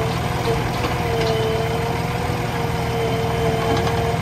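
JCB 3DX Plus backhoe loader's diesel engine running steadily under the backhoe arm's work, with a held, slightly wavering hydraulic whine over the engine's low rumble.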